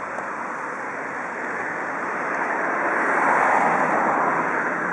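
Steady hiss of escaping steam from the DR Class 18 201 steam locomotive, swelling louder about three seconds in.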